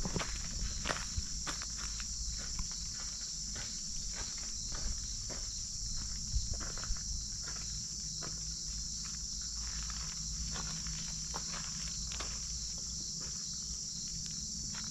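A steady, high-pitched chorus of insects, with footsteps on a wet dirt path, which come more often in the first half.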